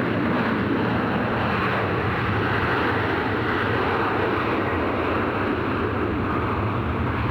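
Airbus A340 landing, its four jet engines giving a loud, steady rushing noise with no change in pitch.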